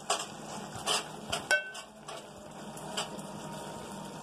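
Wooden spatula stirring cooked Maggi noodles in an aluminium pot, knocking against the pot a few times, with one ringing clank about one and a half seconds in, over a steady hiss. The noodles are being stirred while the last of the water dries off.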